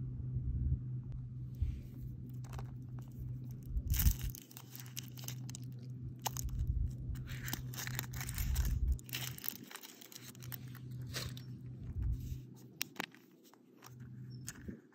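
Foil wrapper of a Kinder Surprise chocolate egg crinkling and tearing as it is peeled off by hand, with a sharp crack about four seconds in, then quieter handling of the plastic toy capsule near the end. A steady low hum sits underneath.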